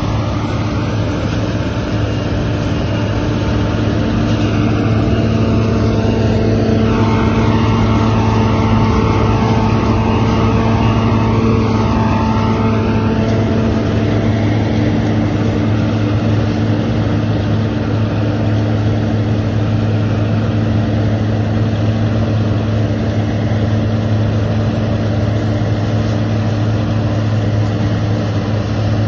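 Claas Lexion combine harvester running steadily, a loud engine drone with several held tones. It grows a little louder with an added higher whine between about 4 and 13 seconds in.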